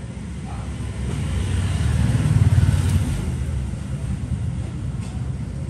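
A motor vehicle passing by: a low engine rumble that swells to a peak partway through and then fades away.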